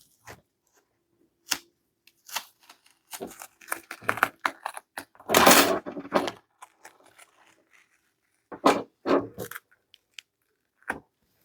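Cutting and tearing open the flaking covering of a headphone headband: a string of short snips and crackles, with a longer, louder tearing sound about five and a half seconds in and a few more sharp clicks near the end.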